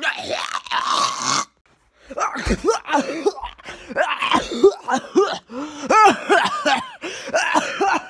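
A person coughing, gagging and groaning in a mock choking fit on popcorn: a harsh rasping cough, a brief break, then a run of strained groans and gags that rise and fall in pitch.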